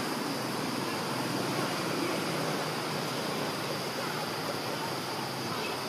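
Steady, even outdoor background noise without clear animal calls or distinct events.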